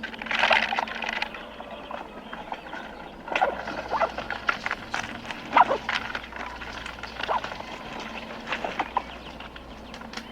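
Squirrel calling in short chirps and chatters that come in irregular bursts every second or two, over a faint steady hum.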